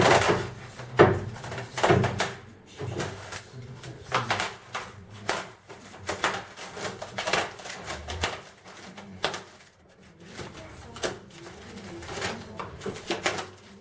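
Irregular rustles, scrapes and knocks of packaging being handled, with no steady machine sound.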